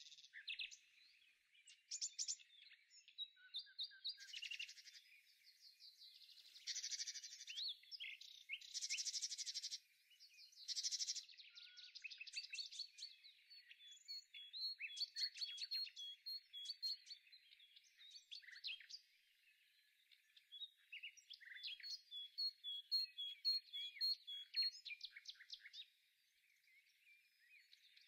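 Songbirds singing: a busy mix of chirps, trills and whistled notes, with runs of quick repeated notes.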